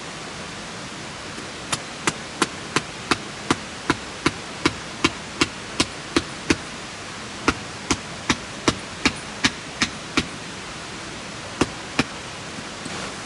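Sharp, evenly spaced hammer-like strikes, about three a second, in three runs with short pauses, over a steady rushing background.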